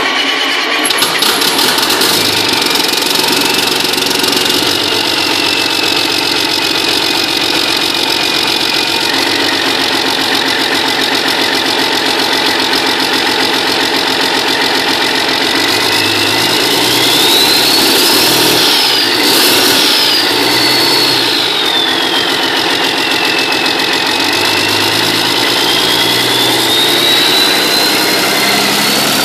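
Detroit Diesel Series 60 inline-six diesel engine on a run stand, running loud and steady just after a cold start. A high whistle rises in pitch and falls back twice a little past the middle, then climbs again near the end.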